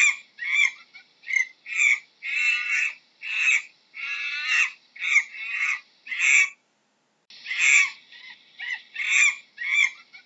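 Monkey calling in a rapid series of short, high calls, about two a second, a few of them longer and wavering. The calls break off briefly about seven seconds in, then go on.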